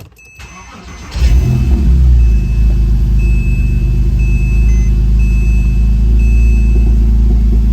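Porsche Cayman S flat-six is cranked by the starter for about a second, then catches and settles into a steady idle. The engine is running with a freshly fitted OEM drive belt and no weird sounds: quiet.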